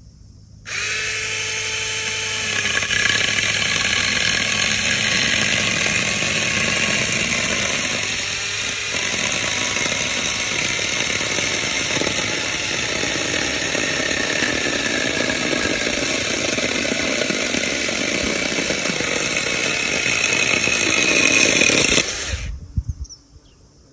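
Battery-powered SeeSii 6-inch mini chainsaw starting up about a second in and cutting through a thick piece of wood, running steadily for some twenty seconds, then stopping abruptly near the end.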